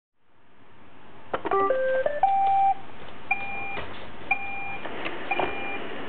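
iRobot Roomba robot vacuum starting up: the hiss of its vacuum motor swells in, a quick rising run of electronic beeps plays, and then short two-tone beeps repeat about once a second over the steady motor hiss, with a few light clicks.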